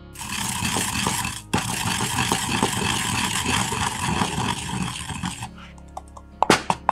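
A wooden pestle grinding dried shrimp in a ceramic suribachi: a continuous gritty scraping against the grooved bowl, with a short break about one and a half seconds in. Grinding stops about five and a half seconds in, and a few sharp taps follow near the end.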